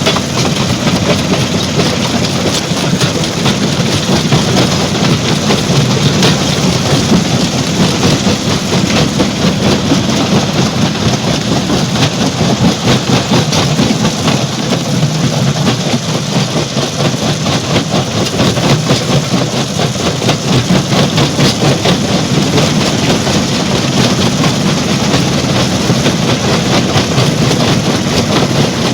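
Stone crusher plant running: a loud, steady mechanical din, thick with the constant rattle of rock being crushed and moved through the machinery.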